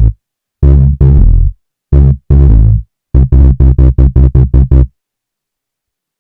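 Loud, distorted synthesizer notes in a short riff: three pairs of held notes, then a quick run of about seven short notes, after which it stops abruptly.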